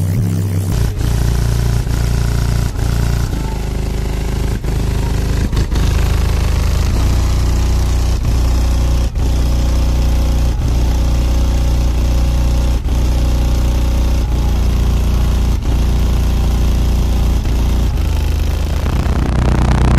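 Car audio subwoofers playing bass-heavy music very loud: deep held bass notes that change in steps, with sharp hits at uneven intervals.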